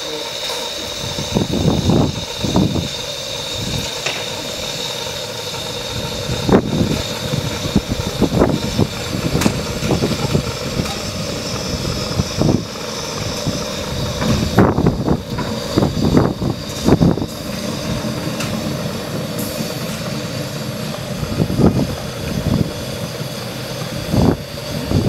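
Steady hiss and hum from a simmering 15-inch-gauge steam locomotive while it is turned on a hand-pushed turntable, with irregular low rumbles and clunks throughout.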